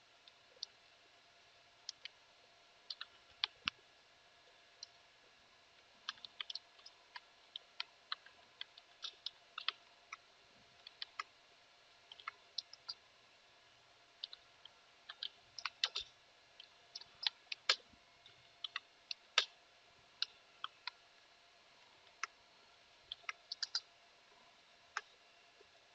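Computer keyboard keystrokes: faint, irregular clicks in short runs with pauses between them.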